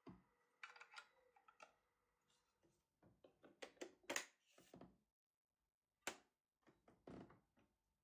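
Faint plastic clicks and knocks from a Xiaomi Roborock S55 robot vacuum's dust bin being pressed into its bay and the lid shut. The loudest clicks come about four seconds in, with one more sharp knock about two seconds later.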